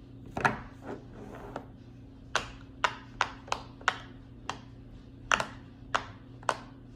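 Bubbles of a silicone pop-it fidget toy being pressed one after another: a string of sharp little pops, about two a second, over a faint steady low hum.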